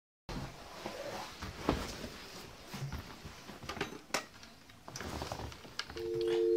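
Scattered clicks and knocks of a telephone being handled as its handset is picked up, then about six seconds in a steady two-tone dial tone starts and holds.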